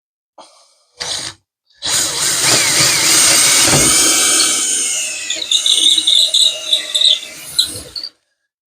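Cordless drill boring through the trailer wall: a short trigger blip, then a long loud run with a motor whine whose pitch sags under load. From about five and a half seconds it falters in choppy spurts before stopping, a sign of the drill's battery running down.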